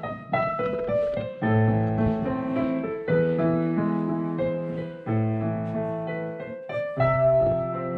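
Digital piano played by hand: a slow piece of chords, each struck and held, with new chords coming about every one to two seconds.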